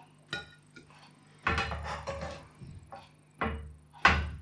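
Spatula and turner knocking and scraping against a frying pan and a plate in a handful of short clatters, as pieces of poached fish are lifted out of the cooking milk.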